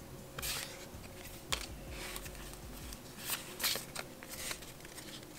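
Pokémon trading cards being handled and slid against one another in a small stack: a series of short papery swishes and flicks.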